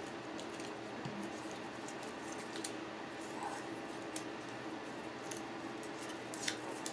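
Light handling noise of small paper cut-outs: scattered faint ticks and rustles as fingers pick up and fold cardstock butterflies, the sharpest tick near the end, over a steady low room hum.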